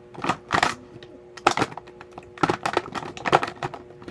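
Plastic Mr. Sketch markers clattering against each other and the sides of a clear plastic tub as a hand rummages through them: an irregular run of sharp plastic clicks and knocks.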